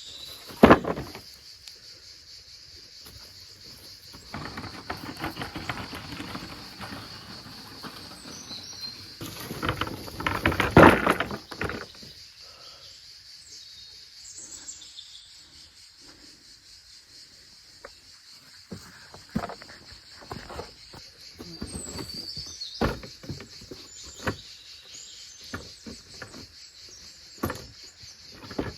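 Insects buzzing steadily in a high band, with occasional bird chirps. Over it come bursts of rustling and handling noise and scattered sharp knocks and clicks, loudest about ten to twelve seconds in.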